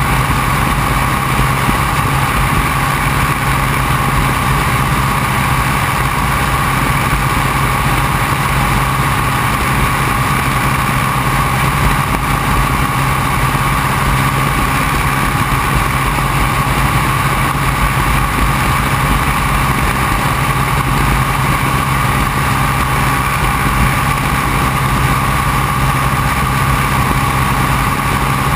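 Open-cockpit biplane's engine running steadily in flight, with the airstream rushing past.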